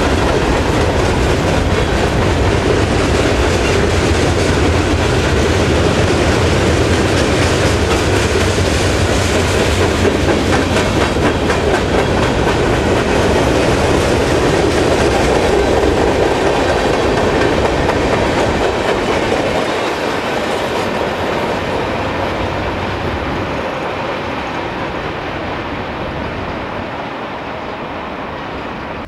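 Mixed freight train of covered hoppers, boxcars and tank cars rolling past close by, its steel wheels clicking over the rail joints. The sound fades gradually over the last ten seconds as the end of the train moves away.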